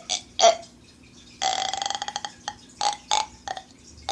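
A person imitating a dolphin with their mouth: a few short squeaky calls, then about a second in a rapid clicking chatter lasting nearly a second, followed by more short squeaks.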